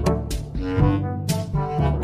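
Upbeat background music with brass and a bouncy bass, a sharp accent about every half second.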